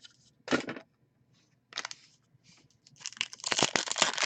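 Trading card packaging being handled: a couple of short rustles, then a run of steady crinkling and tearing from about three seconds in.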